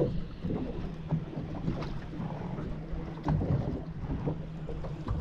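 Small choppy waves slapping and lapping against a boat's hull in irregular surges, with wind buffeting the microphone.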